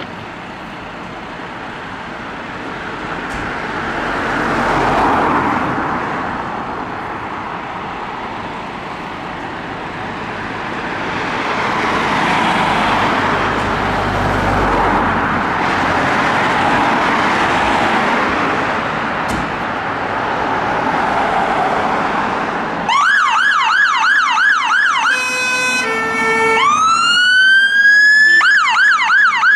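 A fire engine's engine running in its bay, swelling and fading. About 23 seconds in its siren starts with a fast yelp, gives a short steady horn-like blast and a single rising wail, then goes back to the yelp.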